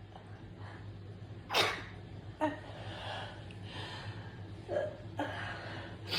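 A person sneezing: one sharp, loud sneeze about a second and a half in, then breathing and smaller catches of breath, with another sneeze starting near the end.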